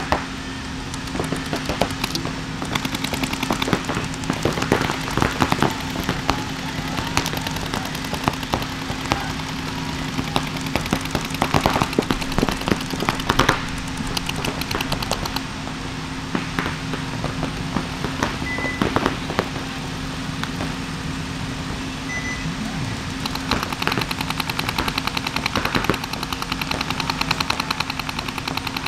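Paintball markers firing: rapid cracking shots in overlapping bursts from several guns, turning into a fast, even stream of shots in the last few seconds, over a steady low hum.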